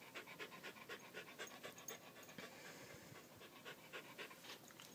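Beagle panting quickly and evenly, faint and shallow: the stress panting of a frightened dog.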